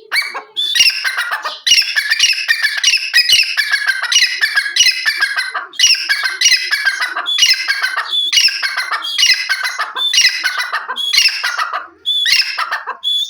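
Grey francolin calling: a long run of loud, harsh, repeated phrases, each sliding down in pitch, about one and a half a second, with a few short breaks.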